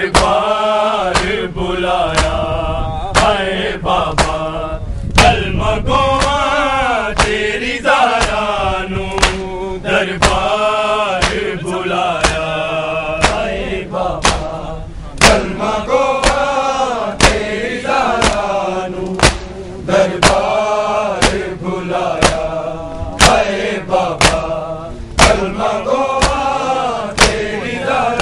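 Male voices chanting a noha, a mourning lament, in a melodic call, with the crowd's matam, hands slapping bare chests, as sharp slaps about once a second.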